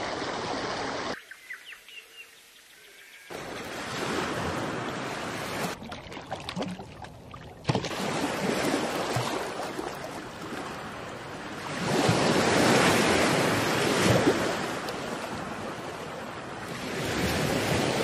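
Ocean surf: waves breaking and washing ashore, a steady rush that is loudest about two-thirds of the way through. It drops away to a much quieter stretch for about two seconds, starting a second in.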